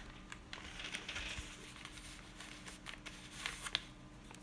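Faint rustling and small handling clicks as a skein of yarn and its cardboard box are handled, with a faint steady hum underneath.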